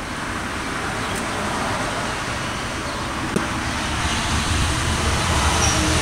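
Steady outdoor background noise, an even broad rumble, with a deeper hum building after about four seconds.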